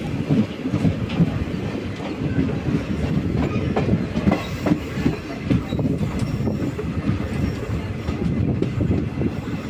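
Passenger express train running on the rails, heard on board: a steady loud rumble with frequent irregular knocks and rattles from the running gear.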